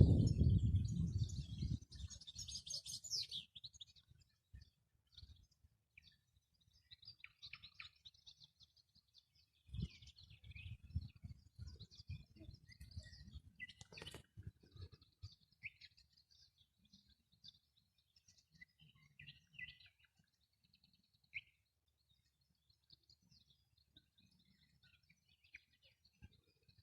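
Small birds chirping: short, scattered high calls throughout, with a low rumbling noise that fades out over the first two seconds and returns more faintly in the middle, and a single sharp click about fourteen seconds in.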